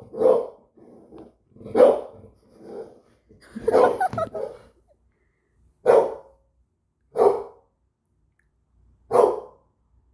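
Pet dog barking: single barks, about seven across the stretch, with gaps of one to two seconds between them and a quick double bark about four seconds in.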